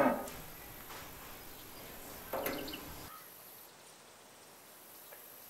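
Low room hiss with one brief, faint metallic click and squeak about two and a half seconds in: a screwdriver turning a screw into the door's metal hinge arm.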